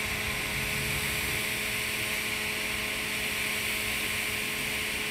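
TIG welding arc on carbon steel pipe, run at 140 amps for a fill pass, hissing steadily, with a faint steady hum underneath.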